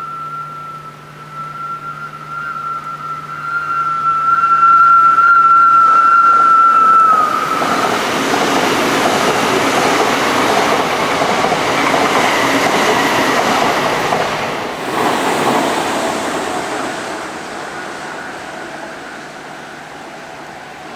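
Odakyu Line commuter electric train approaching with a steady high whine that rises slightly, then passing close by with a loud rumble and clatter of wheels on rail for about eight seconds, fading away near the end.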